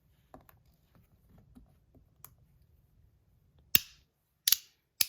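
PEI plastic haptic slider fidget being worked by hand: faint small ticks and rattles, then two loud, sharp clicks as it snaps into its click positions near the end.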